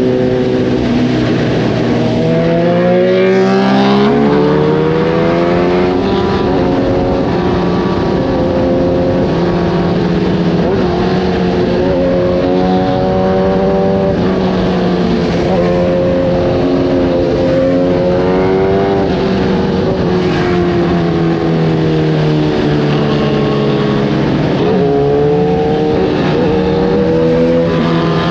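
Kawasaki ZX-10R inline-four sport bike engine through an Arrow racing exhaust, its note climbing and falling in pitch again and again as the throttle is opened and eased, with steadier running in between.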